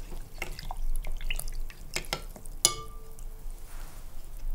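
A spoon stirring lemonade in a glass bowl: the liquid swirls and the spoon clinks against the glass several times. The loudest clink comes about two and a half seconds in and leaves a short ringing note.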